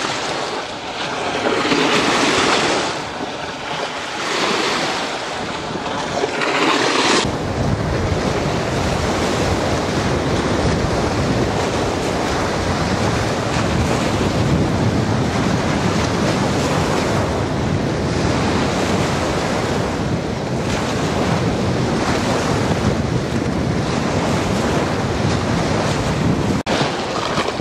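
Wind-driven waves washing and breaking against a sloping concrete reservoir bank, with wind rumbling on the microphone. For the first seven seconds the wash comes in surges about every two seconds; then it changes abruptly to a steadier, fuller rush with more low rumble.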